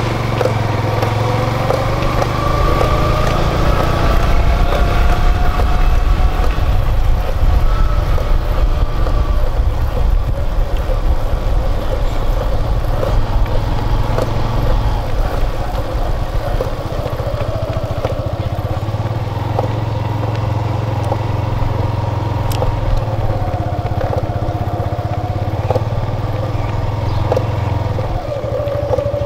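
Motorcycle engine running at low road speed, its note drifting up and down slightly, with a steady low rumble of wind on the microphone.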